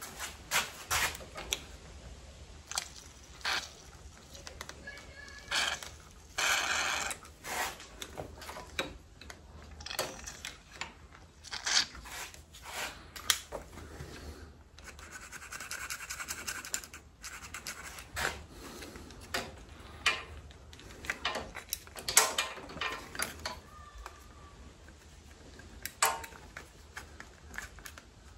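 Hands working on a motorcycle's corroded control cables: a run of irregular clicks, taps and scrapes as the parts are handled, with a couple of longer scraping sounds about six and fifteen seconds in.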